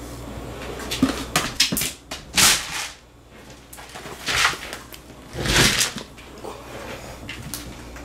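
A cat knocking over and rolling a plastic food jar on a hard floor: a quick run of sharp knocks, then longer scraping, rattling bursts as the jar tips and rolls, then softer scuffing.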